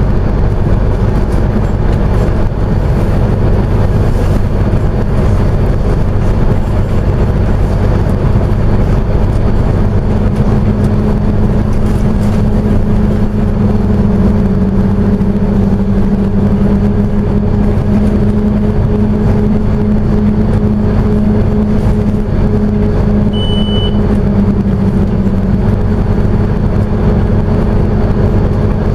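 Scania OmniCity single-deck bus under way, heard from inside the passenger saloon: steady diesel engine and road noise, with a low hum that comes in about a third of the way through and holds until near the end. A short high beep sounds once late on.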